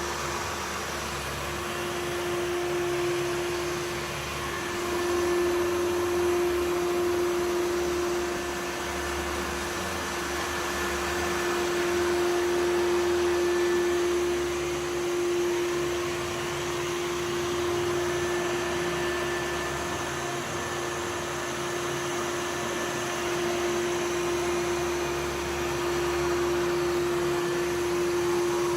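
Samsung VR20M7070WD robot vacuum running, a steady whir with a constant hum, getting louder and softer by turns as it moves about.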